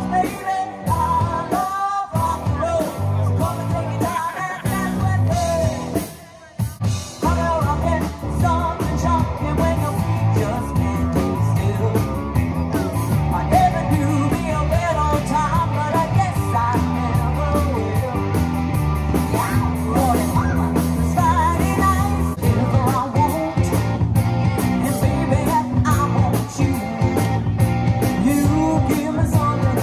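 Live rock band playing amplified: a woman singing lead over electric guitars, bass guitar and drums, with a brief break in the music about six seconds in.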